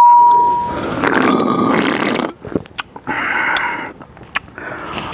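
A loud steady test-card beep under TV colour bars cuts off under a second in. Two stretches of loud, rough, rasping noise follow, one about a second and a half long and a shorter one about two seconds later, with scattered clicks.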